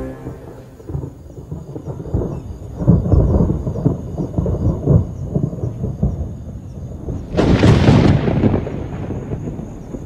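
Lions growling and snarling in rough, rumbling pulses, with a loud snarl about seven and a half seconds in.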